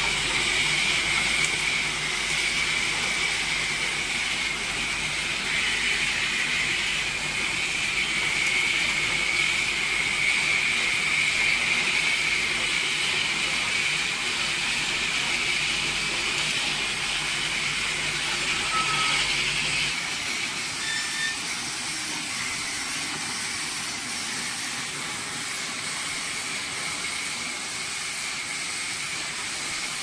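Rotary bottled-water filling and capping machine running: a steady mechanical whir with a hiss. A low hum drops out about two-thirds of the way through, and the sound gets slightly quieter.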